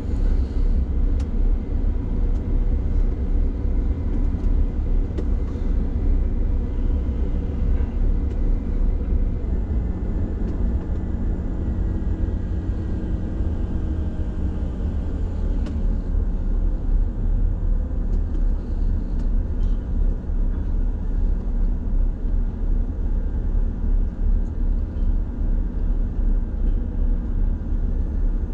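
Liebherr LTM mobile crane's diesel engine running steadily, heard from inside the operator's cab: a low rumble with a faint steady whine above it.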